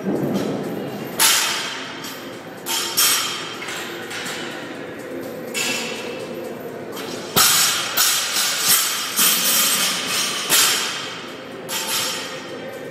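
Loaded barbell with rubber bumper plates dropped onto the gym floor between cleans: several heavy thuds, some followed by quick smaller bounces.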